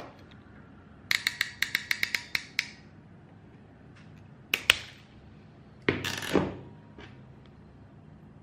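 Ratcheting RJ45 crimp tool pressing a connector onto network cable: about ten quick ratchet clicks as the handles close, two sharp snaps a couple of seconds later, then a louder clack about six seconds in.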